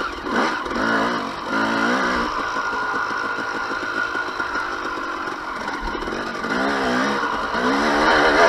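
2007 KTM 250 XC-W single-cylinder two-stroke enduro engine under riding throttle, revs rising and falling repeatedly. Its pitch steadies through the middle, then climbs again near the end.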